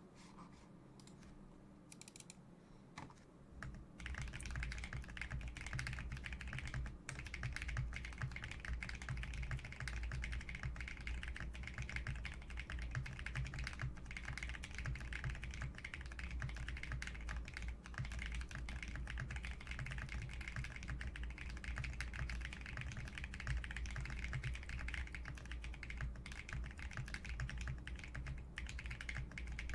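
Typing on a Neo Ergo mechanical keyboard with lubed Neopolitan switches, a POM plate, case foam and PBT keycaps. A few separate keystrokes come in the first few seconds, then fast continuous typing from about four seconds in.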